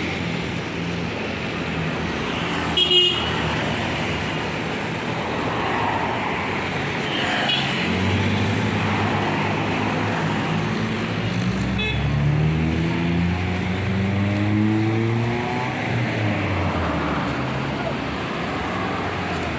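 Tour bus diesel engine pulling away and accelerating, its note climbing twice in the second half as it speeds up, over traffic noise. A short horn toot sounds about three seconds in.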